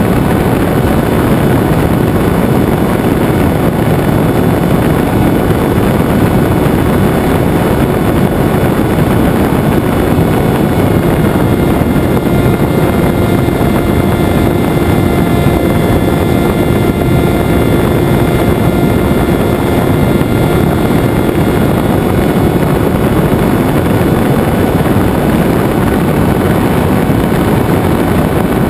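Venturi FPV flying wing in flight, heard from the onboard camera: a steady loud rush of wind over the microphone with the hum of its electric motor and propeller, which stands out more in the middle of the stretch.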